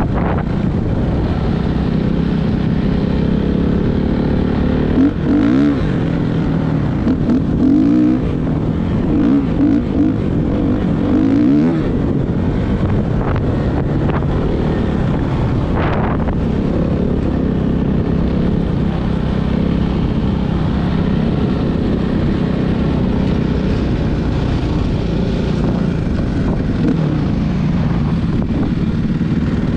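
Suzuki RM-Z450 four-stroke single-cylinder motocross bike being ridden, its engine running steadily under load. Between about 5 and 12 seconds in, the revs rise and fall in quick glides as the throttle is worked.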